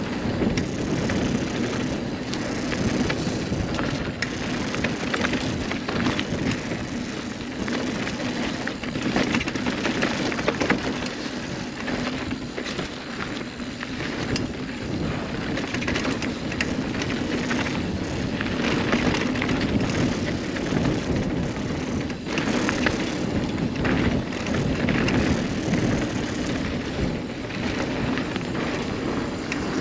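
Steel hardtail mountain bike being ridden fast along a dirt trail: a steady rush of knobby 29er tyres rolling over dirt, with many small clicks and knocks as the bike rattles over bumps.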